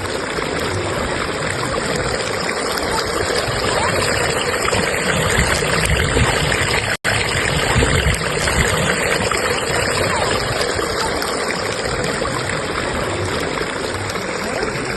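Rushing river current, fast water running steadily over rocks. It cuts out for an instant about seven seconds in.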